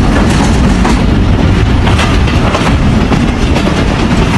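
Passenger train running at speed, heard from an open carriage window: a loud, steady rumble with wheels clattering over the rails as it crosses a road bridge.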